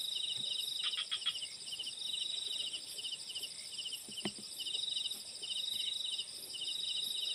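Night insects chirping: a steady high trill, with a pulsed chirp repeating a few times a second. There is a few faint clicks about a second in and a brief knock about four seconds in.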